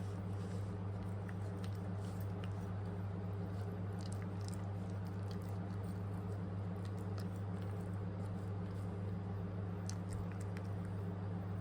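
A puppy eating, with small irregular wet chewing and lapping clicks, over a steady low electrical hum that is the loudest sound throughout.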